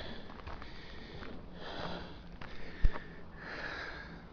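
A person breathing close to the microphone, with audible sniffing; the breaths swell and fade in slow cycles. One sharp knock sounds about three seconds in.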